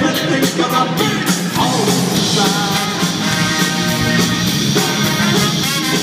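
Live band playing loud: drum kit, electric bass and electric guitar, with a horn section of trumpets and trombone joining in about two seconds in on held notes.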